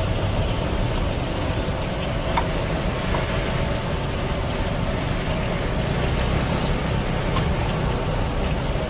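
Steady road-traffic rumble, with a few faint clicks of eating and lip smacks.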